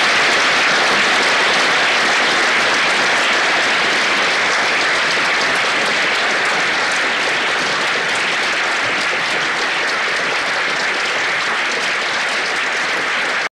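An audience applauding steadily at the end of a talk, the clapping easing only slightly before it is cut off abruptly.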